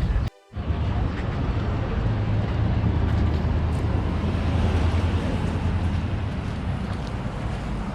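A steady low vehicle rumble with wind noise on the microphone, starting after a brief dropout to near silence just after the start.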